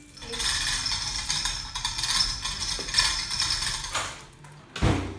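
Metal parts rattling and clinking as they are handled and moved, with a heavier thump near the end.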